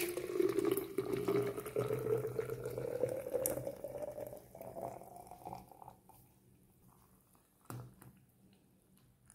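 Thick papaya milkshake pouring into a tall glass, its hollow tone rising in pitch as the glass fills. The pour tapers off about six seconds in, and a short knock follows near the end.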